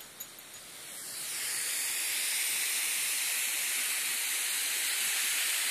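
Garden hose spraying water in a fine mist, a steady hiss that swells up over the first two seconds and then holds.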